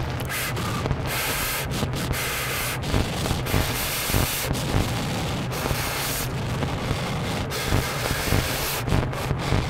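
Wind noise rushing over the microphone, mixed with irregular rustling that fits footsteps in dry fallen leaves.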